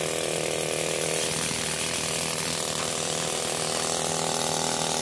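Hand-held pneumatic rock drill hammering steadily into hard rock, a fast, even rattle, over the steady drone of the tractor-driven air compressor that feeds it.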